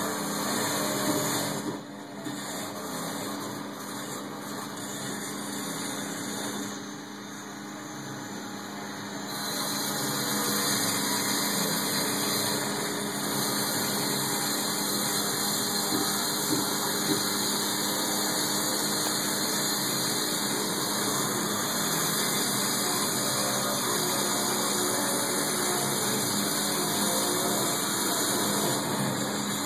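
Power grinder cutting old mortar out of brick joints for repointing, heard through a window pane as a steady grinding whine with brief lulls near the start, then running steadily.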